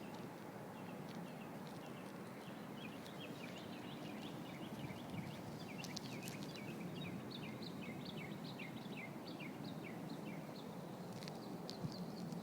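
A bird chirping in a long run of short, quick, falling notes, several a second, over a steady low background noise, with a couple of sharp clicks about six and eleven seconds in.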